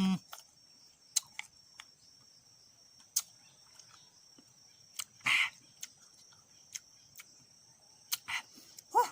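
Eating tamarind pods: scattered short crunches, clicks and mouth smacks, with a louder one about five seconds in, over a steady high chirring of crickets.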